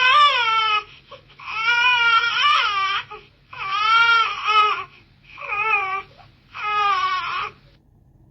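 A baby crying: a run of high-pitched wails, each about a second long, with short breaths between them.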